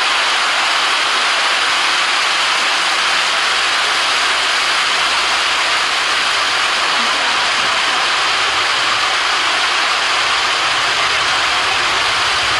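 Steady rush of water pouring down a fountain cascade, an even hiss at constant loudness.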